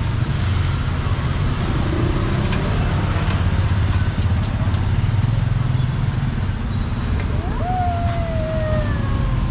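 Street traffic: a steady low engine rumble from passing vehicles, with a faint wavering tone near the end.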